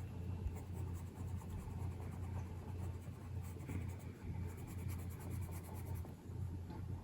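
Colouring pencil scratching and rubbing on paper in quick, light strokes, over a low steady hum.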